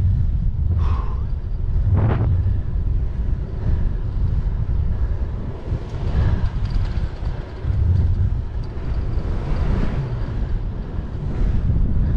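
Wind buffeting the microphone of a camera on a moving bicycle, a heavy low rumble that swells and eases, with faint riding noise under it.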